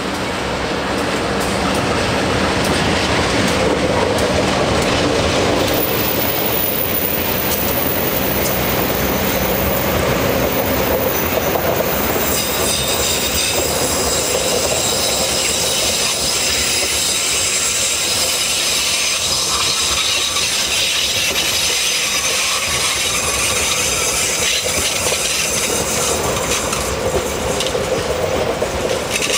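Passenger coaches of the Sawunggalih train rolling slowly round a tight curve, their wheels and brakes squealing against the rail as the train slows, over a steady rumble and clatter of wheels on track. The high, piercing squeal sets in about six seconds in and grows much stronger and louder from about twelve seconds on.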